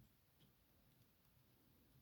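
Near silence, with a couple of very faint ticks from a pick turning the discs inside a disc-detainer bike lock.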